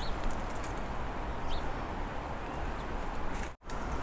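Outdoor ambience: a steady hiss with a low wind rumble on the microphone and two faint short bird chirps. It cuts out for a moment near the end.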